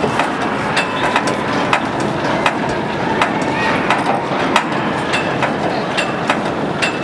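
Hand-cranked winding gear that opens the streamlined front doors of the LNER A4 locomotive Mallard, clicking about one and a half times a second as the handle is turned, over a steady background murmur of a large hall.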